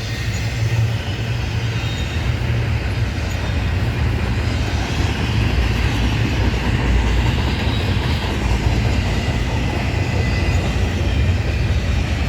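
Norfolk Southern intermodal freight cars rolling past on the rails: a steady, loud rumble of wheels and cars.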